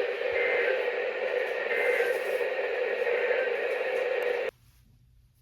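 Weather radio receiver's speaker putting out a steady hiss of static, which cuts off suddenly about four and a half seconds in.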